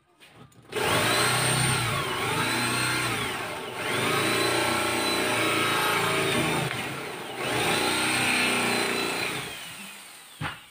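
Corded electric drill with a cup-shaped boring bit cutting into a wooden door to bore the latch hole, run in three bursts of about three seconds each, the motor's whine rising as it gets up to speed and dropping between bursts. A single click comes near the end.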